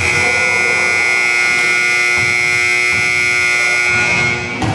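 Gymnasium scoreboard buzzer sounding one long, loud, steady blast that cuts off after about four and a half seconds.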